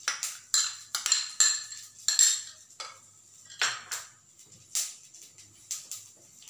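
A metal spoon clinking and scraping against a bowl in quick, irregular strokes, thickest in the first couple of seconds and sparser after: curd being mixed with water.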